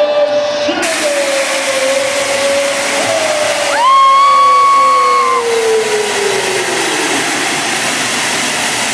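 Stadium crowd noise under the hiss of pyrotechnic flame jets, which cuts in sharply about a second in. Over it a long drawn-out call on the public address slowly falls in pitch. About four seconds in a high whoop rises and holds for over a second, the loudest sound.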